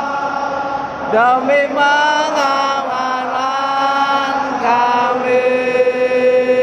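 A large stadium crowd of football supporters singing a chant together in long held notes, the pitch stepping up and down, with a sliding rise about a second in.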